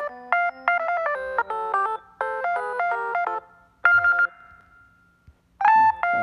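Phone ringtones playing through an LG phone's speaker. A quick electronic melody of short bright notes stops about three and a half seconds in, a single chime rings out near four seconds, and another ringtone starts near the end.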